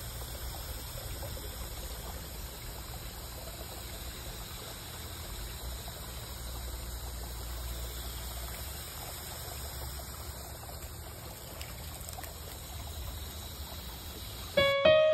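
Steady trickling and running water in a garden pond. Music with distinct plucked or struck notes starts abruptly just before the end.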